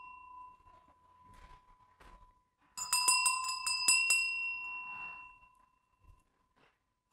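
Small hand bell shaken, a quick flurry of strikes about three seconds in that rings on at a clear high pitch and dies away over a couple of seconds. The ring of an earlier stroke fades out at the start.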